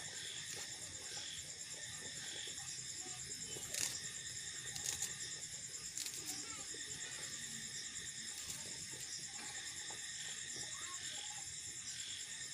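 Steady high-pitched chirring of crickets and other insects, with a few light clicks and knocks about four, five and six seconds in as onions are peeled by hand.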